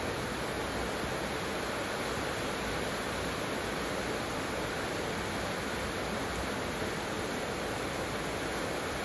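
Heavy rain pouring steadily onto clay roof tiles and palm trees, a dense, unbroken hiss with no letup.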